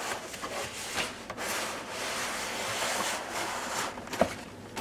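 A blender unit sliding out of its cardboard box, with packaging rubbing and scraping for a couple of seconds and a sharp knock near the end.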